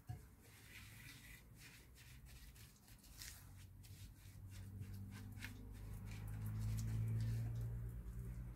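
Spatula stirring and scraping a moist breadcrumb, egg and tuna mixture against a ceramic bowl in soft, irregular strokes. A low hum swells in the second half.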